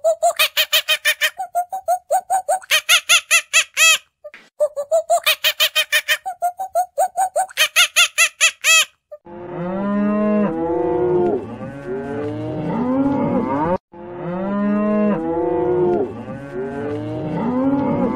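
A monkey chattering in two bouts of rapid, evenly spaced high calls, about six a second. Then, about nine seconds in, a herd of Holstein cattle mooing, several long calls overlapping.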